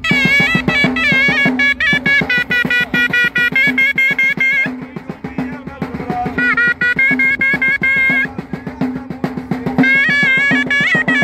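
Moroccan Gharbaoui ghaita music: a ghaita (double-reed shawm) plays a high, ornamented melody over fast, steady stick strokes on a snare drum. The shawm breaks off for about a second near the middle while the drum keeps going.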